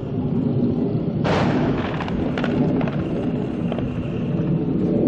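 Airstrike explosion. A sudden blast comes about a second in, followed by several sharp cracks over the next two seconds, above a steady low rumble.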